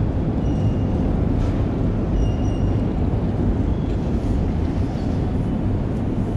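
Wind buffeting the microphone, a steady low rumble. Faint short high beeps sound twice, near the start and about two seconds in.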